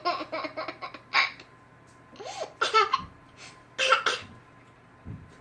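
A young child laughing in a quick run of short pulses, then giving several short, separate fake coughs.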